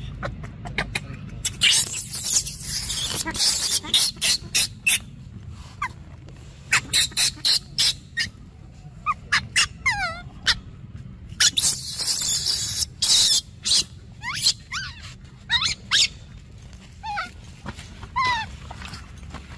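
Baby macaque screaming and whimpering: two long, harsh screams, about a second and a half in and again past the middle, with many short sharp cries and falling, whistle-like whimpers in between.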